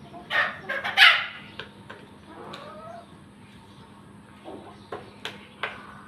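Chickens in a poultry pen: two loud, harsh calls in quick succession about a second in, then quieter clucking and scattered clicks.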